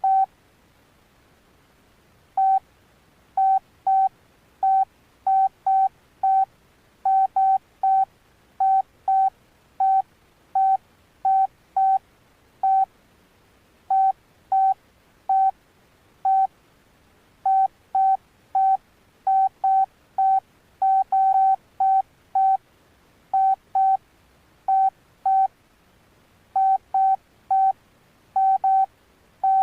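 Alcatel OneTouch Retro 2017B flip phone giving short keypad beeps as its buttons are pressed, all at the same pitch. The beeps come in an irregular stream, sometimes in quick pairs, with a pause of about two seconds near the start.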